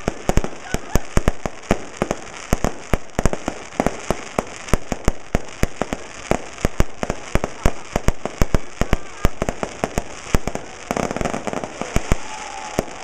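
Aerial fireworks going off in quick succession: sharp bangs several times a second, the reports running together into a denser stretch near the end.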